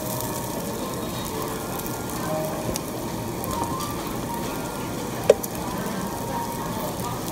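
Meat sizzling and crackling on a barbecue grill, with one sharp click about five seconds in.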